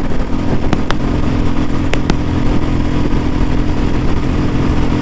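Royal Enfield Bullet 350's single-cylinder engine running steadily at a cruise of about 100 km/h, with wind rushing past the microphone and a few short clicks.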